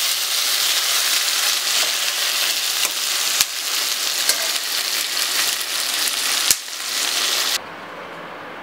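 Shallots and chopped tomato frying in oil in a steel pan, a steady sizzle broken by a few sharp clicks. The sizzle stops abruptly near the end.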